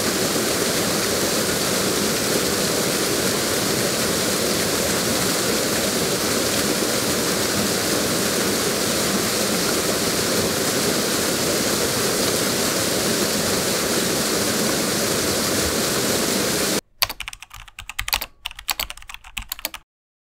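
A waterfall pouring steadily. It cuts off about seventeen seconds in, followed by a few seconds of sparse, irregular clicking.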